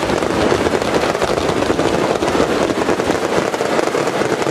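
A dense, rapid barrage of daytime firecrackers, the bangs coming so fast they run together into one continuous crackle.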